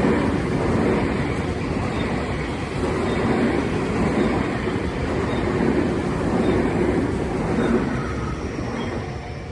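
Tobu Tojo Line train passing close by, a continuous rumble of wheels and running gear that swells and eases, then begins to fade near the end as it moves away.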